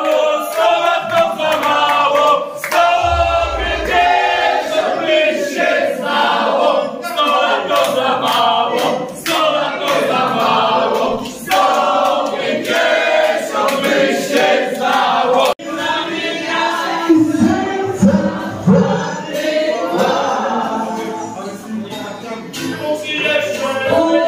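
A group of men and women singing together in chorus.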